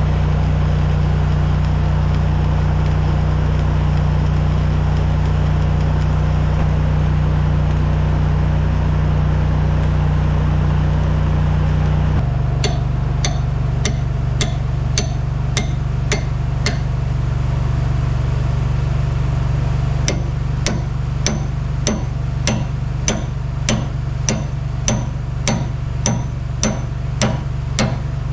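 An engine runs steadily. About midway it is joined by a series of metal-on-metal hammer blows, roughly two a second with a short pause partway through: a hammer striking a stuck part on a bulldozer's hydraulic lift cylinder that will not break loose.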